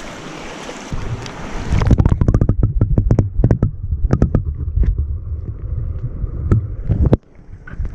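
Creek water heard with the microphone dunked under the surface during a trout release: a muffled low rush dotted with many bubbling clicks. The rush cuts off suddenly near the end, and the open-air stream hiss returns.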